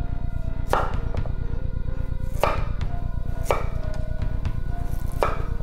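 Kitchen knife chopping rapidly and evenly on a wooden cutting board, with a few louder sharp knocks among the strokes. Music plays underneath.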